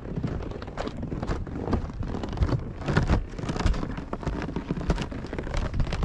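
Footsteps crunching in packed snow, with wind buffeting the microphone in a low, uneven rumble.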